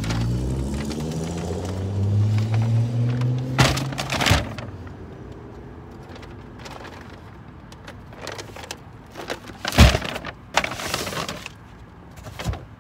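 A car engine accelerating nearby, its hum rising steadily in pitch for about four seconds. Then come scattered knocks, thumps and rustles as groceries are lifted out of a metal shopping cart, the loudest about ten seconds in.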